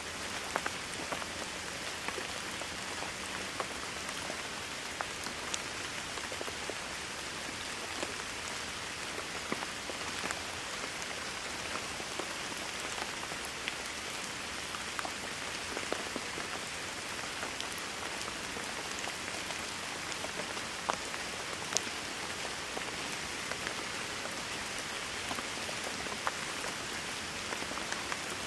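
Steady rain falling: an even hiss with many individual drops ticking through it.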